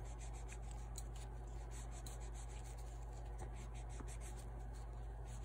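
Faint scratchy scrubbing of a toothbrush and rag worked by hand over a small door lock cover, many short irregular strokes, polishing the drilled area to a shine. A low steady hum runs underneath.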